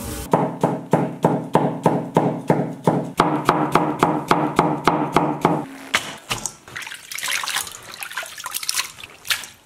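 A cleaver chopping cucumber into shreds on a cutting board, about three strokes a second, stopping a little over halfway through. Then hands slosh and squeeze something in a metal bowl of water.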